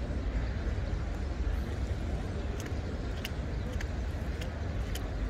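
Open-air city ambience: a steady low rumble of distant traffic and wind. Faint sharp ticks come about every half second or so in the second half.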